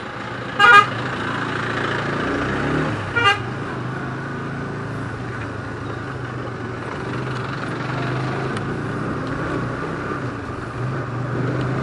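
Motorcycle engine running steadily while riding, with two short horn beeps, one about a second in and another about three seconds in.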